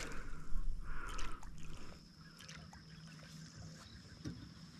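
Hooked redfish splashing and thrashing at the water's surface beside a kayak for about two seconds, followed by a single knock a little after four seconds in.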